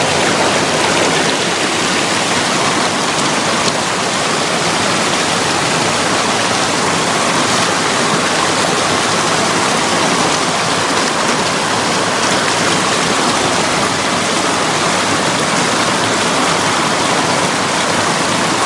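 Water pouring over a low rock ledge of a river waterfall and churning into whitewater, a loud, steady rush close to the microphone.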